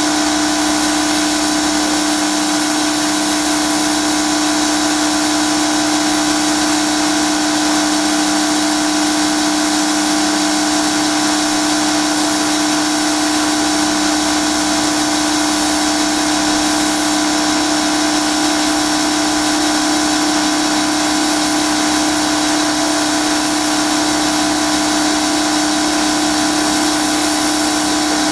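Pressure washer running steadily while its jet sprays the porch's wooden deck: a constant motor hum over an even hiss of spray, unchanging throughout.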